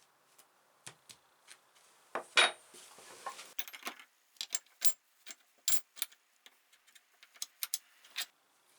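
Metal hand tools and bench-vise parts being handled: a string of sharp clinks and clicks, loudest about two seconds in, followed by a brief scraping rub.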